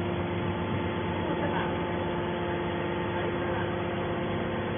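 Hydraulic scrap metal baler running, its power unit giving a steady hum with several held tones.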